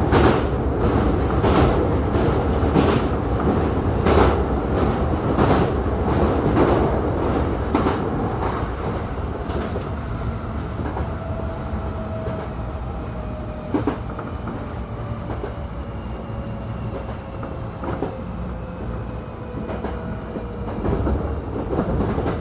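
Hankyu electric commuter train running, heard from the cab: wheels clacking over rail joints about every second and a bit, then from about halfway a thin motor whine that falls steadily in pitch as the train slows.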